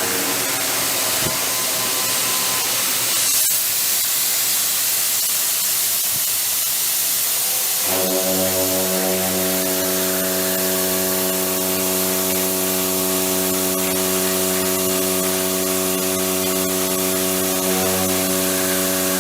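Lymco SDV-HLA CNC milling machine heavy milling, with a loud, steady hiss throughout. About eight seconds in, a steady hum of several pitched tones comes in and holds.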